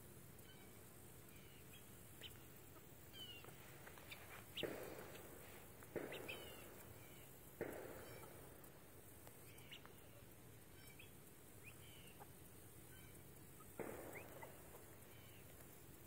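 Faint scattered short chirps and calls from poultry (guineafowl and bantam chickens foraging), with four louder sudden sounds, each fading over about half a second.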